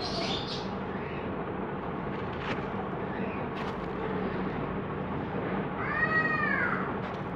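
Dried sand-and-cement lumps crumbled by hand on a floor, a gritty crunching with a few sharp crackles as pieces break off. A cat meows once about six seconds in, a short call that rises and falls.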